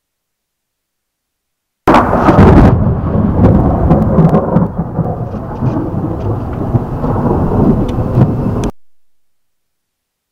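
Thunder: a sudden loud crack about two seconds in, then a low rolling rumble that stops abruptly several seconds later.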